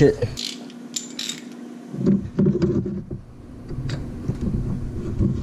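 Hand tools clicking and clinking against metal parts in a car's engine bay while a socket tool is fitted to the crankshaft pulley bolt, over a faint steady hum.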